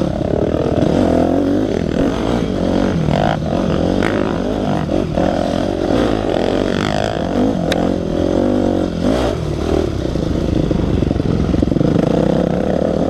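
Dirt bike engine heard from on the bike, its revs rising and falling over a rough trail, with a few knocks and clatter from the bike over the bumps.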